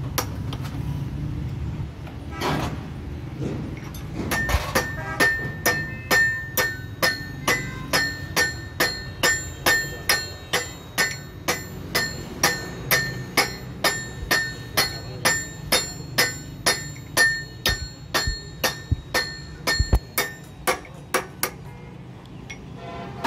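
Steel hammer striking the gear-shaft assembly and housing of a Hino truck manual gearbox during assembly. A long run of even blows, about two or three a second, begins about four seconds in and stops shortly before the end, each blow ringing metallically.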